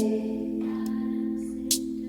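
Background music: a held low chord slowly fading, with a couple of sharp high ticks.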